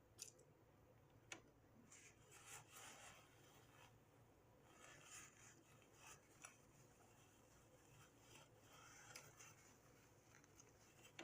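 Near silence with faint eating sounds: soft rustles and a few small clicks from someone chewing and handling a sloppy joe.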